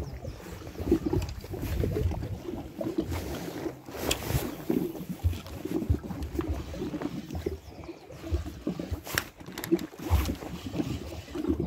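Gusty wind buffeting the microphone in an uneven low rumble, with water lapping and two brief sharper rushes of noise about four and nine seconds in.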